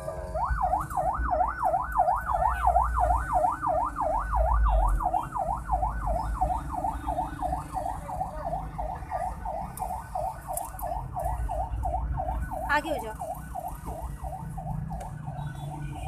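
Siren-like yelp, a tone rising and falling quickly and evenly about three times a second, that winds down with a falling glide about thirteen seconds in. A low car-cabin rumble runs underneath.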